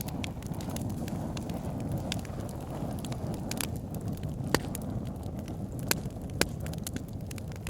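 Wood fire burning in a fireplace: a steady low rumble of flames with frequent sharp crackles and pops from the logs, a few louder snaps about four and a half, six and six and a half seconds in.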